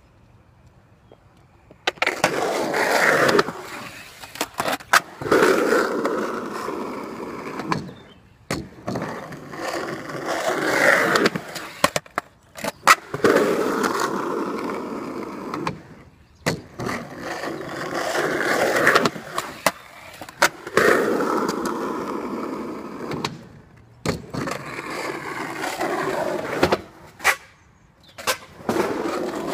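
Skateboard on 53 mm Force urethane wheels rolling over concrete, starting about two seconds in. The rolling noise swells and fades as the board passes again and again, with sharp clacks of the board hitting the concrete in between.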